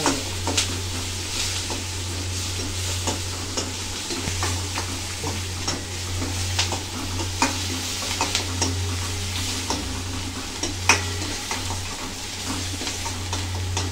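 Onion, green chilli and ginger-garlic sizzling in hot oil in a steel pan while being stirred, the utensil clicking and scraping against the metal many times. A steady low hum runs underneath.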